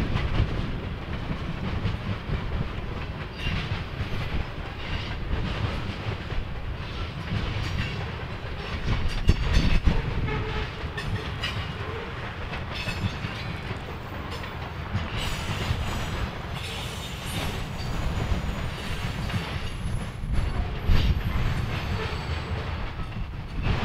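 Train rolling past, a steady low rumble of wheels on rail with repeated clicks as the wheels cross rail joints.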